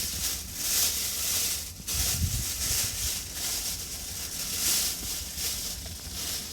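A loud, uneven rustling hiss, high in pitch, that breaks off briefly about two seconds in, with a dull low thump just after the break.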